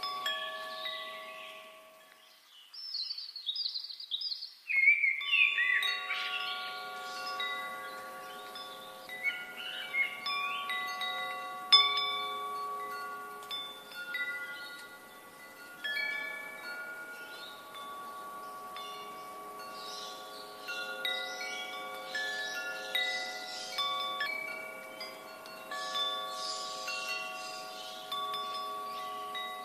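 Wind chimes ringing, many metal tones struck at random and overlapping as they ring on. The lower tones fall away for a few seconds near the start, leaving only the higher chimes.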